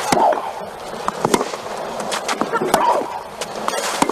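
Tennis rally: a ball struck back and forth by rackets several times, about a second apart, with a player's short grunt on some of the shots.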